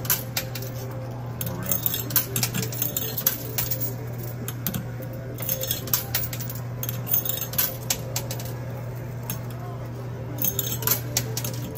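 Quarters clinking inside a coin pusher machine: coins dropping onto the playfield and knocking against each other as the pusher shelf slides, in irregular clinks throughout. A steady low hum runs underneath.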